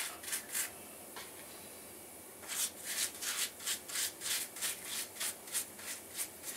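A brush scrubbing diluted muriatic acid onto the rough concrete around a floor drain opening, in quick rhythmic strokes of about three a second. There is a quieter pause of a second or two near the start.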